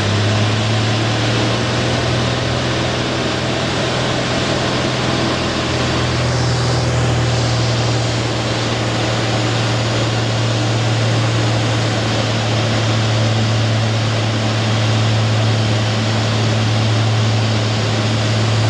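Cessna's piston engine and propeller droning steadily inside the cockpit, a low hum over rushing air noise, on the landing approach.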